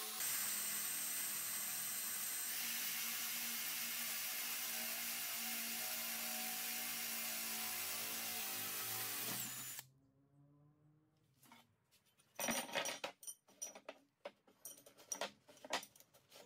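Cordless drill boring through a metal square tube: a steady whirring grind that stops suddenly about ten seconds in. A couple of seconds later, metal bars clatter and clink as they are handled and laid out on the bench.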